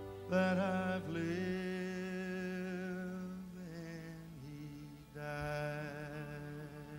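A man singing long, drawn-out wordless notes with vibrato over quiet country band backing, two phrases, the second starting about five seconds in.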